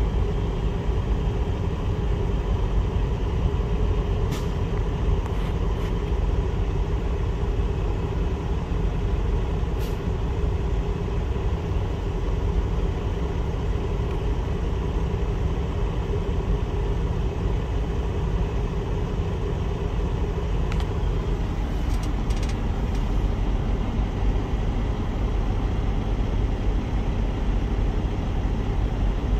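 Steady low rumble of a semi-truck's diesel engine running, heard inside the cab, with a few faint clicks.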